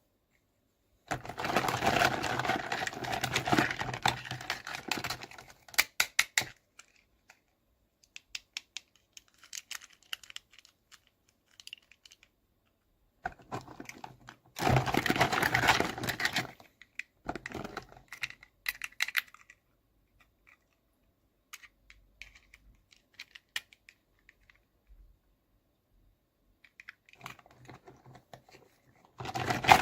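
Unboxing of miniature toys handled up close: three dense bursts of rustling and crinkling packaging, a few seconds each, with scattered light clicks and taps between them.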